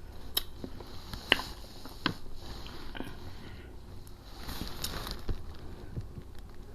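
Close-up eating sounds: soft, scattered wet mouth clicks and smacks while chewing saucy food.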